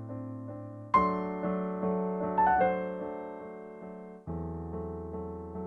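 Background piano music: sustained keyboard chords, with a new chord struck about a second in, more notes a little later and another chord change near the end.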